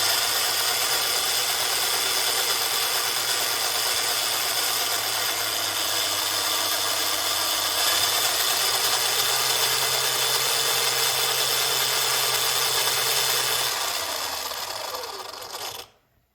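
Arrma Kraton RC truck's electric motor and drivetrain running steadily at light throttle with its wheels spinning off the ground, breaking in the differentials. It eases off over the last couple of seconds and then stops abruptly.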